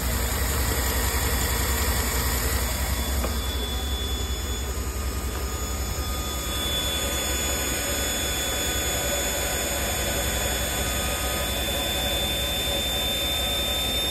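A Chevrolet Tahoe's 5.3-litre Vortec V8 idling steadily on wood gas from a gasifier, with a thin, steady high whine from the gasifier's blower motor.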